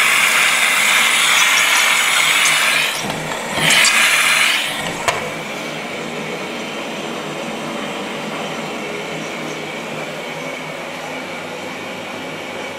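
Water hissing through the detergent drawer of a Zanussi Super Jetsystem washing machine as it fills for a rinse, in two spells, the second after a short break. A click about five seconds in, then the machine runs on with a quieter steady hum.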